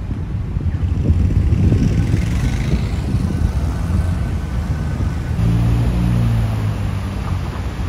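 Road traffic: a motor vehicle's engine rumbling close by. A steadier engine hum comes in about five seconds in.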